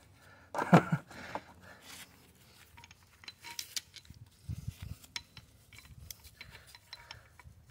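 Light metallic clinks and taps of small steel crimping dies being handled while a hydraulic lug crimper is changed to a smaller die, with one sharper clink about a second in and a few soft low bumps near the middle.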